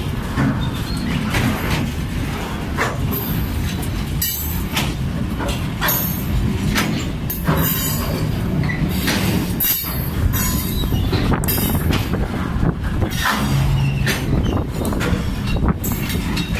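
Freight train of hopper wagons rolling past close by: a steady rumble of wheels on the rails, broken by frequent sharp clacks.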